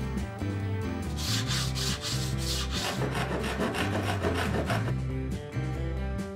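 A hand tool scraping and rubbing along a glued bamboo fly rod blank in two runs of strokes, taking off the excess glue, over background music.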